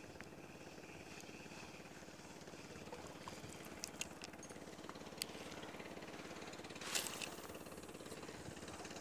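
Small boat engine running steadily with a fast, even chugging. A few sharp clicks come in the middle, and there is a brief rush of noise about seven seconds in.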